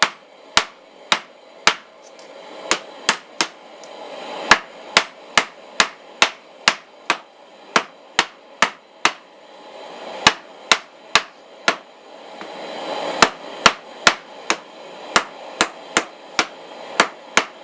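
Hand hammer striking hot quarter-inch round steel stock on an anvil in a steady rhythm of about two sharp blows a second, with a few short pauses. The blows are drawing out a square taper, the bar turned a quarter turn between blows.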